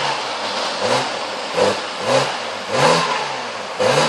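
BMW E89 Z4 30i's 3.0-litre straight-six, heard through an aftermarket HE'ART performance exhaust with quad tailpipes, revved in about five quick throttle blips at a standstill. Each blip rises and falls in pitch over the engine's running note.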